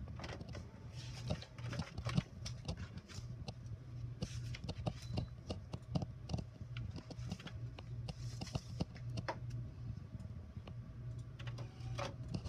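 HP Officejet 4500 inkjet printer printing: a steady low hum with many irregular clicks and clacks from the print carriage and paper feed.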